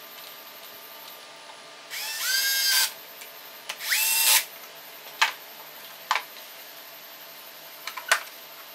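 Cordless drill-driver run in two short bursts on the screws of a car's plastic air-conditioner evaporator housing, its motor whine rising as it spins up each time. A few sharp plastic clicks and knocks follow as the housing is handled.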